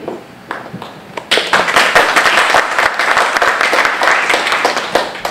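Audience applauding, breaking out about a second in and tapering off near the end, with a few light knocks before it starts.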